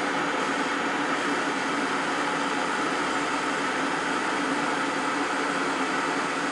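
Agfa Azura C95 plate processor running, its rollers carrying a printing plate out through the exit: a steady mechanical hum with several constant tones that does not change.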